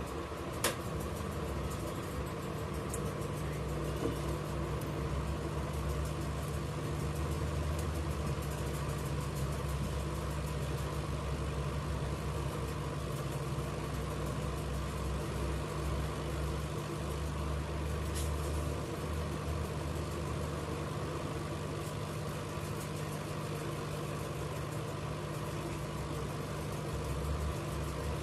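Hot air rework station running steadily, a low even fan-and-air hum, while it heats solder to seat a replacement charging socket on a phone's circuit board. A single click just after the start.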